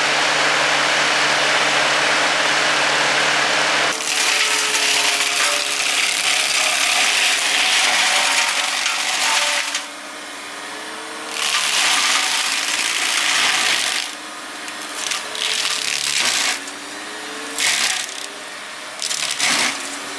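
Eterra EX-30 V2 excavator flail mower running, its hydraulically driven rotor shredding brush with a loud grinding noise over a steady hum that shifts and glides in pitch. In the second half the shredding eases off and surges back several times.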